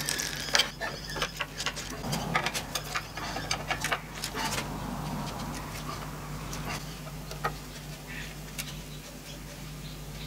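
Flat-blade screwdriver tightening the screws of a carbon-fibre plate on its brackets: a run of small clicks and ticks of the blade on the screw heads, dense over the first few seconds and sparser after. A steady low hum lies under it.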